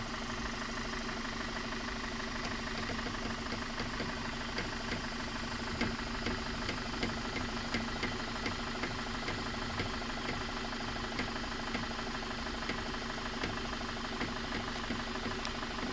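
Car engine idling while the steering wheel is turned to the right, with a run of small irregular creaks and ticks. The creaking comes from the wheel rubbing on the plastic fender liner.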